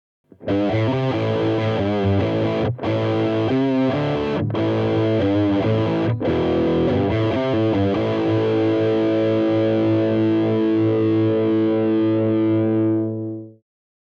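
Distorted electric guitar played through a Revoltage RV-15T tube amplifier combo: a choppy riff with a few short breaks, then a held chord that rings out for about six seconds before stopping abruptly.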